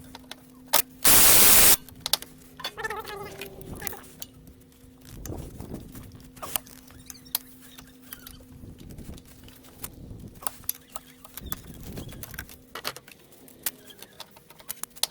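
Hand tools working loose the water pump bolts on a Toyota Camry engine: irregular metallic clicks, clinks and scraping, with one loud short burst about a second in. A faint steady hum runs underneath.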